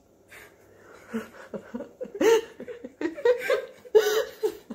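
A woman laughing and chuckling in short breathy bursts, faint at first and louder from about two seconds in.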